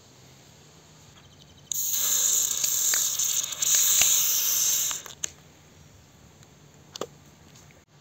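A shaken can of cola is pulled open: a sudden loud hiss of pressurised gas and foam spraying out of the opening, lasting about three seconds, followed by a few sharp clicks and taps.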